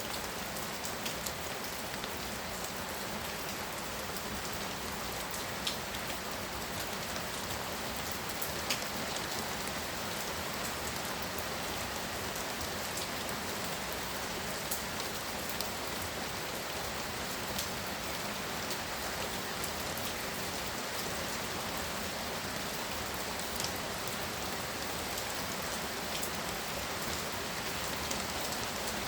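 Heavy rain pouring steadily, with scattered sharp ticks of single drops striking a nearby surface.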